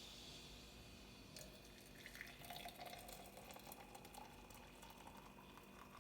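Faint trickle of liquid running or being poured, with small scattered clicks.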